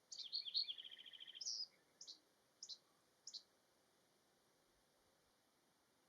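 Eastern kingbird calling: a burst of sharp, high chattering notes running into a quick stuttering trill, then three single short high notes spaced well apart, the last about three and a half seconds in.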